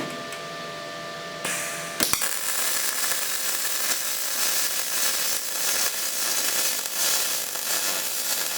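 Electric welding arc crackling steadily as a weld bead is laid; the arc strikes with a sharp crack about two seconds in.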